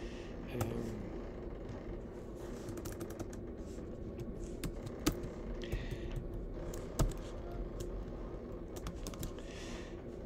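Sparse clicks and taps on a computer keyboard, with two louder clicks about five and seven seconds in, over a faint steady hum.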